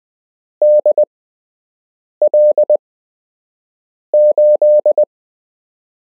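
Morse code practice tone: a single steady electronic pitch keyed into dots and dashes, sending random call signs. Three short groups of characters come with pauses of about a second between them, the last group the longest.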